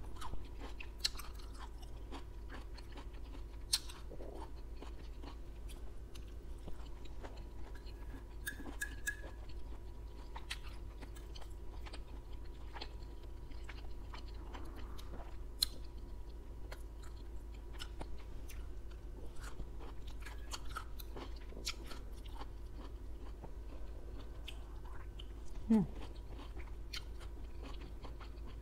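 Close-miked chewing and biting of beef and broccoli with crunchy vegetables: wet mouth sounds and many small sharp clicks and crunches, with occasional taps of a fork on the plate.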